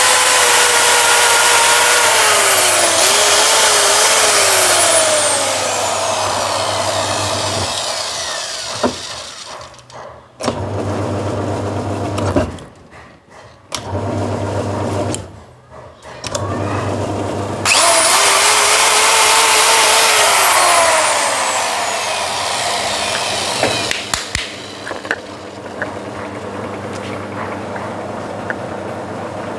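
An electric power tool's motor running, switched on and off several times: it starts with a jump, speeds up and then winds down in falling pitch. A low hum sounds in the stretches between runs.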